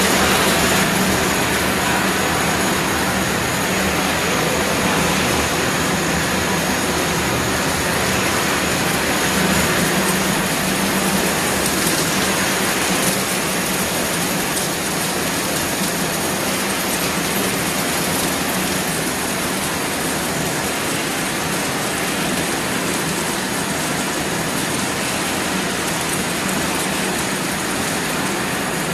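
Corn puff snack production line running: steady, loud machine noise of the extruder and its motors and fans, with a low steady hum underneath.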